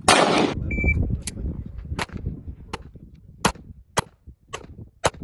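Handgun fired in a steady string of about seven sharp shots, half a second to three-quarters of a second apart, opened by a loud half-second burst of noise.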